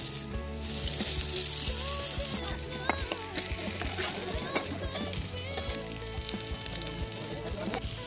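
Coated brinjal (eggplant) slices sizzling steadily as they shallow-fry in hot oil in a pan.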